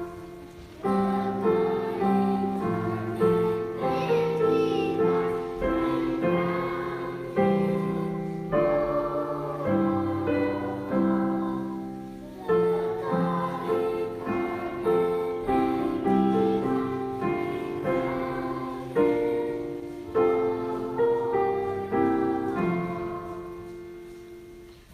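Children's choir singing a hymn with piano accompaniment, the piano's struck chords and notes carrying the tune; the sound dies away near the end.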